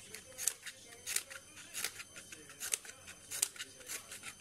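Scissors snipping into a cardboard toilet-paper roll to slit it into strips: a short, crisp cut about every two-thirds of a second, six or so in all.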